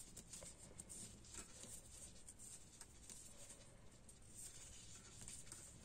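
Near silence, with faint soft ticks and rustles from knitting needles and yarn as stitches are knitted.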